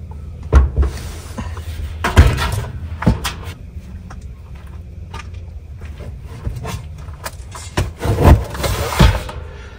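Scattered knocks and thumps of gear being handled in the back of a camper van, with rustling and footsteps on gravel in between.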